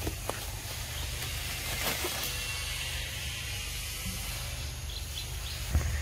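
Outdoor forest ambience: a steady low rumble under a high hiss, with a few faint clicks in the first two seconds. Near the end the low rumble gets louder.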